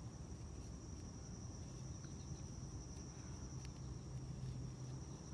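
Faint steady background: a thin, constant high-pitched tone over a low hum, with a couple of soft clicks.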